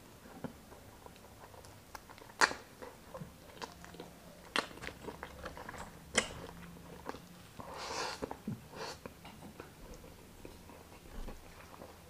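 Close-miked chewing and wet mouth sounds of a person eating chicken inasal and rice by hand, with irregular sharp smacks and clicks, the loudest about two and a half seconds in.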